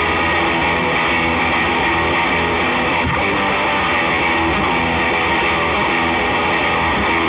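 Opening of a punk rock song: electric guitar playing steadily, with no drums yet.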